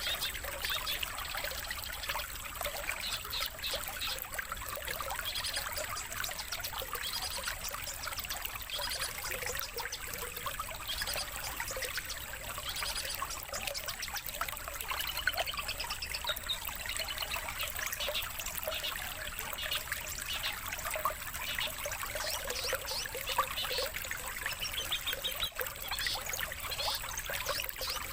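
Songbird chirps and rapid trills, one after another, over a steady trickle of running water, as in a bird-training master recording for competition songbirds.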